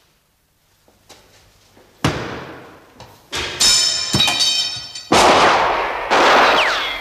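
Near quiet with a few faint knocks, then a sudden loud bang about two seconds in. More loud bangs and crashes follow, with high ringing, like debris or glass, as they die away.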